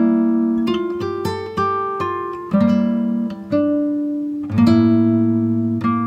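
Background music: acoustic guitar strumming chords, a new chord struck about every second and each left to ring out.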